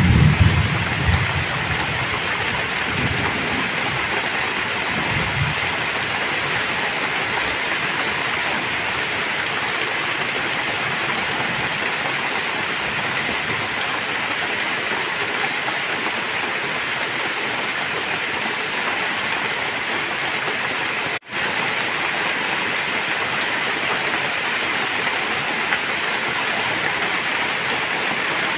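Heavy rain pouring steadily. A low rumble of thunder dies away in the first couple of seconds, with fainter rumbles a few seconds later, and the sound cuts out for an instant about two-thirds of the way through.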